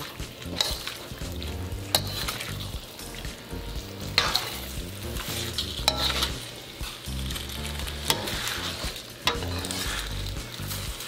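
Spaghetti, chicken and sauce sizzling in a steel wok as a metal ladle stirs and tosses them, with a few sharp clinks of the ladle against the wok, while the soy-based sauce cooks down and thickens.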